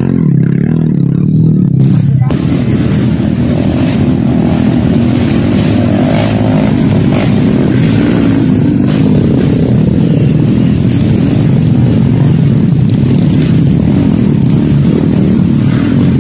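Small motorcycle engine running close and loud while hauling a load of oil palm fruit bunches, its pitch rising and falling as it is revved. The sound changes abruptly about two seconds in.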